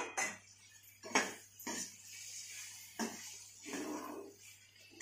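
A perforated metal spoon scraping and stirring a vegetable mixture in a metal kadhai, giving a series of irregular scrapes and knocks against the pan about once a second.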